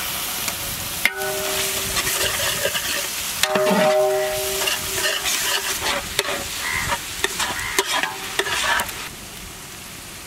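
Onions and freshly added ginger-garlic paste sizzling in hot ghee and oil in a large metal pot while being stirred, with the utensil clicking and scraping against the metal and ringing briefly about a second in and again near four seconds. The sizzle dies down after about nine seconds.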